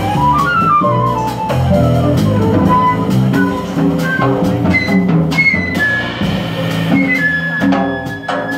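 Live small-group jazz: a flute solo over plucked upright double bass and drums. The flute plays quick falling runs, then longer held high notes.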